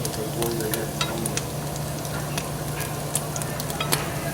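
Sausage sizzling in a frying pan, with scattered crackles and pops over a low steady hum.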